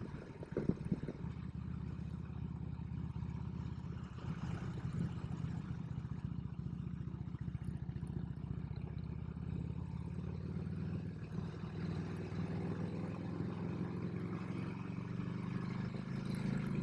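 Harley-Davidson Road King's V-twin engine running steadily under way, a low, even pulsing exhaust note.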